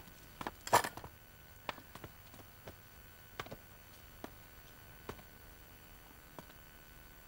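Footsteps and scattered knocks on a wooden floor, irregular and fading after the first few seconds. The loudest is a longer thump just under a second in.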